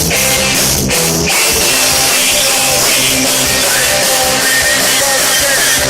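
Punk rock band playing live: loud electric guitars, bass and drums, heard from within the crowd.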